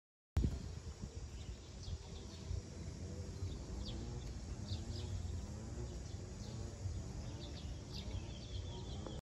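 Outdoor ambience of birds giving short, high chirps scattered throughout, over a steady low rumble; the sound cuts in abruptly a moment in.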